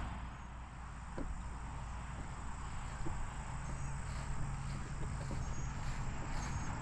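Quiet outdoor ambience: faint, short, high-pitched insect chirps every second or two over a steady low rumble, with a couple of soft knocks.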